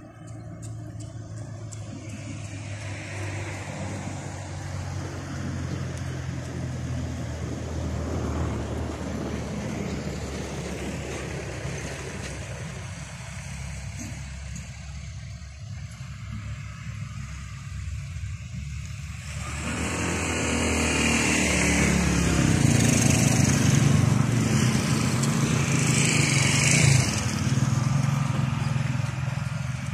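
Motor vehicle running on a road with a steady low engine hum. About two-thirds of the way in a vehicle passes close by, and its engine and tyre noise swells loud and then eases off near the end.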